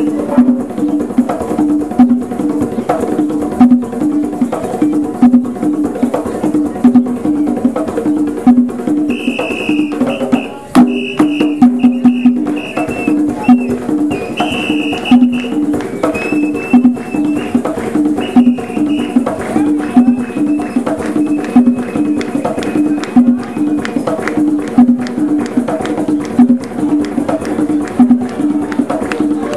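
A troupe of African hand drums played live in a fast, steady, interlocking rhythm. Short high held notes sound over the drumming from about nine to nineteen seconds in.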